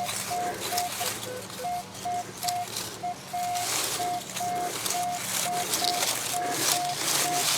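Metal detector sounding a repeated short high-pitched beep over a buried target, the repeatable high tone of a good signal, with a few lower beeps and scratchy rustling in between.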